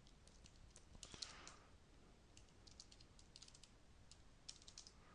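Faint typing on a computer keyboard: short clusters of light key clicks with pauses between them.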